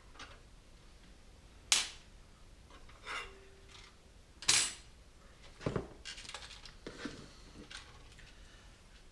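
Sharp metallic clicks and clatter of computer hardware being handled in a PC tower: the two loudest snaps come about two and four and a half seconds in, followed by a run of lighter clinks.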